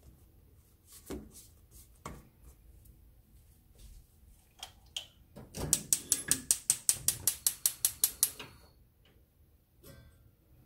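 A few soft thumps of dough being kneaded in a stainless steel bowl, then a fast, even run of sharp mechanical clicks, about seven a second for some three seconds, like a ratchet being turned.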